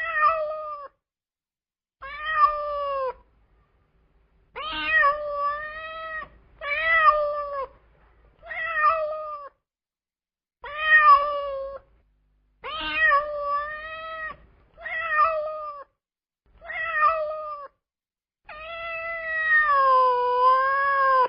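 Hungry stray cat meowing over and over, about ten drawn-out meows of roughly a second each with short pauses between, the last one longer and wavering up and down in pitch.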